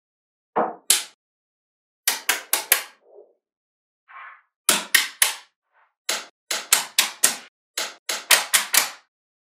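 Neodymium magnetic balls snapping together as slabs of them are pressed onto a magnet-ball build: about twenty sharp clicks in quick clusters of two to five, with a few softer rustles between.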